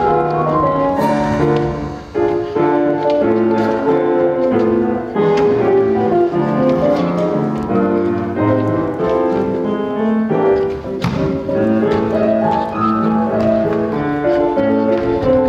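Piano-led instrumental accompaniment playing an instrumental break in a stage-musical song, with no singing.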